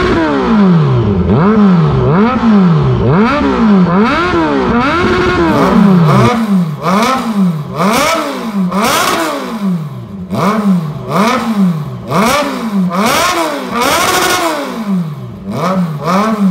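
Kawasaki Z1000's inline-four engine breathing through an aftermarket full exhaust system, revved in repeated quick throttle blips. The pitch climbs and falls about once a second, and the blips come sharper and choppier in the second half.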